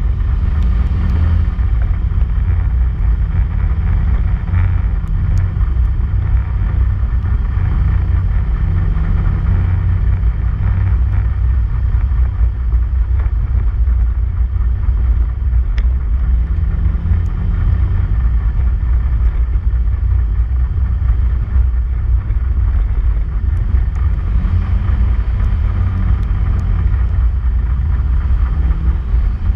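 Polaris RZR side-by-side driving steadily along a gravel dirt trail: a constant low engine drone with rumble from the tyres and chassis on the rough surface. The engine note rises and falls slightly near the end.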